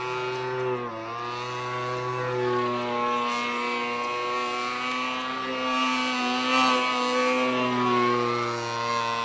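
RC aerobatic model plane's motor and propeller running on the ground. The pitch dips briefly about a second in, climbs slowly through the middle, then drops back near the end as the throttle is eased.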